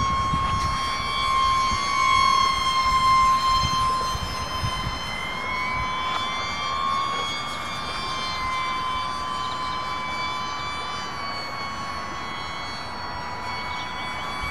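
Radio-controlled model airplane in flight: a steady, high motor-and-propeller whine whose pitch wavers slightly up and down, loudest a couple of seconds in.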